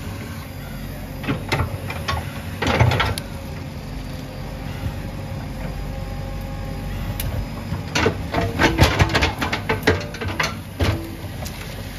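JCB 3DX backhoe loader's diesel engine running steadily while its backhoe bucket works through brick-and-earth rubble. Clattering knocks of broken bricks and earth come about two to three seconds in and again in a longer run from about eight seconds.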